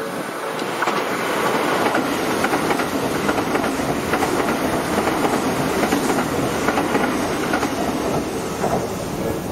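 Tobu 70000 series electric commuter train passing close by at speed: a steady rumble with wheels clicking over the rail joints, easing slightly near the end as the last cars go by.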